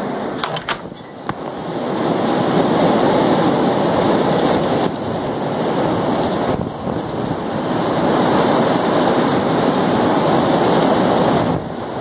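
Blizzard wind buffeting the microphone: a loud rushing noise that dips about a second in, then swells again in gusts.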